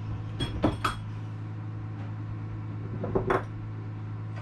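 Light metallic clinks and knocks as the keel-stepped aluminium mast is guided out through the hole in the deck, its foot knocking against the mast collar. There are three knocks in the first second and two more about three seconds in, over a steady low hum.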